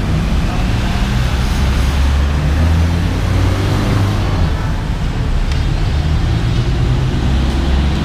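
Steady low rumble of motor traffic and engines running nearby, holding at a constant level with no breaks.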